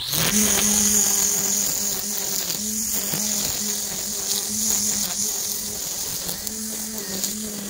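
String trimmer running steadily as it cuts grass along a lawn edge, a steady hum with a high whine, its pitch dipping briefly now and then as the line bites into the grass.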